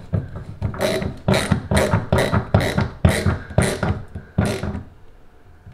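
Ratcheting screwdriver clicking in short rhythmic bursts, about two a second, as the overflow cover's centre screw is snugged down. It stops about three-quarters of the way through.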